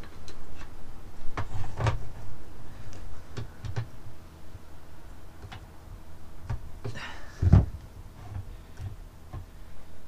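Pliers clicking and knocking against a plastic van door handle as small plastic retaining clips are prised off it: scattered clicks and knocks, the loudest about two seconds in and about seven and a half seconds in.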